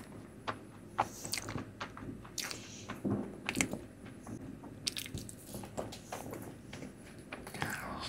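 Close-miked eating sounds: Indian sweets being bitten and chewed, with irregular mouth clicks and smacks several times a second.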